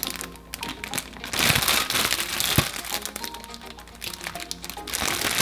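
Plastic snack-cake wrapper crinkling as the package is handled and turned over, loudest about a second and a half in and again near the end, over light background music.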